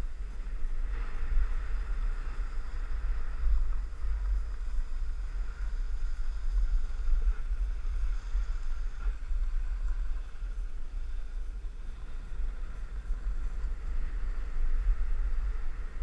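Wind rumbling and buffeting on a body-worn action camera's microphone while riding downhill, with a steady hiss of the rider sliding over groomed snow.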